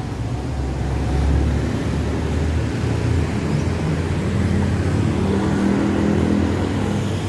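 Street traffic: motor vehicle engines running close by, a steady low rumble throughout.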